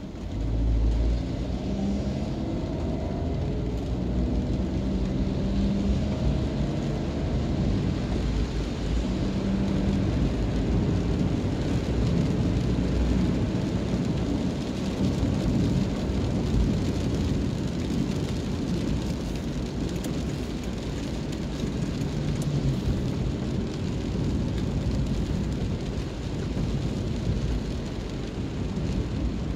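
Car driving on a wet road, heard from inside the cabin: a steady low rumble of engine and road with the hiss of tyres on wet asphalt and rain on the windscreen. An engine note rises in pitch over the first few seconds as the car picks up speed.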